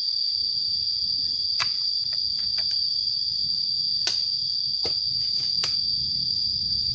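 Steady, high-pitched insect drone, with a handful of sharp clicks and snaps scattered through it as tree branches are pruned.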